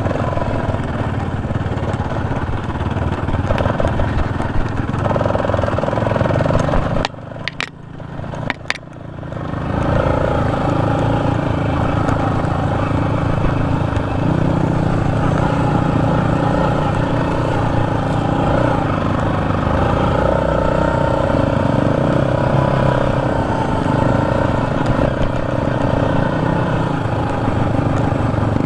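Sport ATV's engine running under throttle on the ride, heard from a camera mounted on the quad. About seven seconds in the engine note drops off briefly, with a couple of sharp clicks, then picks back up and runs steadily again.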